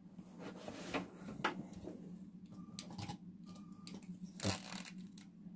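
Light clicks and clatter of plastic Lego train parts and a Powered Up remote being handled, with a louder knock about four and a half seconds in.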